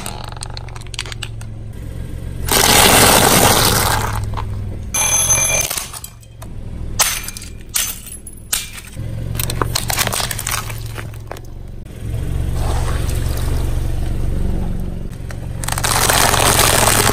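A car's tyre rolling over and crushing objects, with crunching bursts over a low engine hum, loudest about three seconds in and again near the end. A brief high squeak comes about five seconds in, and a run of sharp cracks follows a couple of seconds later.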